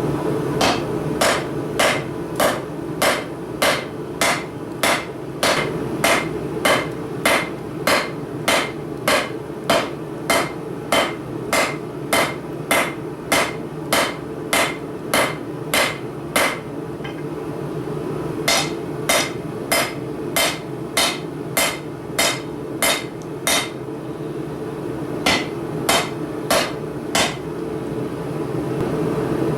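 Blacksmith's hammer striking steel on an anvil while forging tongs: steady blows about two a second in three runs, with short pauses about 17 and 24 seconds in. A steady low rush continues underneath.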